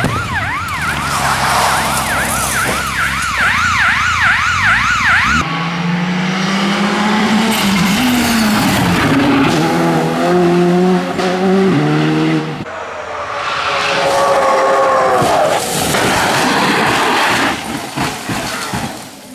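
Rally cars at speed on a gravel and tarmac stage. For the first few seconds there is a fast, siren-like wailing tone. Then one car's engine revs up through several gear changes, followed by engine and tyre noise on the loose surface. Near the end a car goes off and rolls over.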